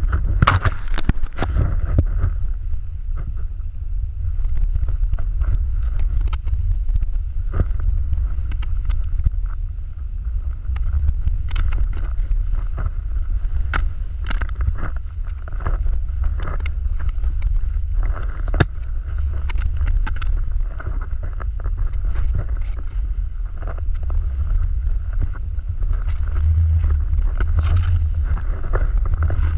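Wind buffeting the action-camera microphone as a snowboard runs down a snowy slope, a steady low rumble, with the board scraping and clicking over the snow.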